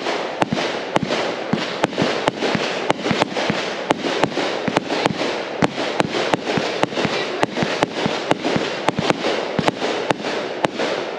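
Multi-shot aerial firework cake firing in rapid succession: sharp bangs about three a second over a continuous hiss, stopping suddenly at the end.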